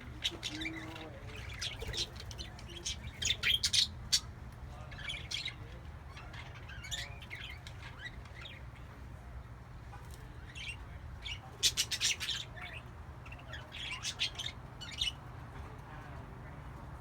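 Pet parakeets in a cage chirping and squeaking in short, scattered bursts, with louder clusters of rapid chirps about three to four seconds in and again about twelve seconds in. A steady low hum runs beneath.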